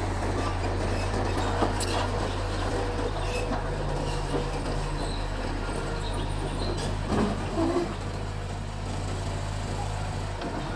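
Mitsubishi bulldozer's diesel engine running steadily, with a sharp knock about two seconds in and a few clanks a little past the middle.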